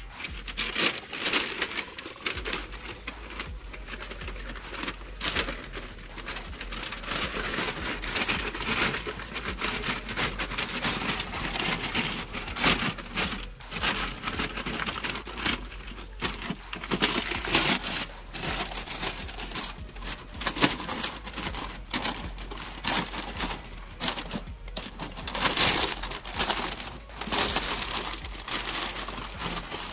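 Butcher paper crinkling and rustling in uneven handfuls as gloved hands fold it around a brisket to wrap it partway through the smoke.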